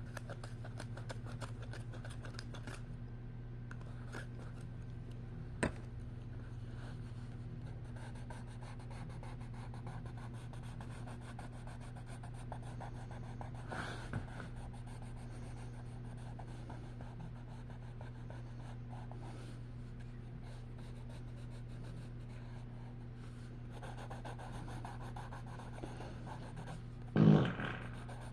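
Coloured pencil scratching on paper in quick, continuous strokes over a steady low hum, with one short, loud, low rasping noise about a second before the end.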